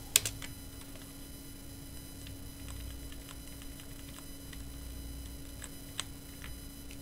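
Computer keyboard keys pressed now and then, with one sharper keystroke near the start and fainter ones after, while the installer menus are moved through. A steady electrical hum sits underneath.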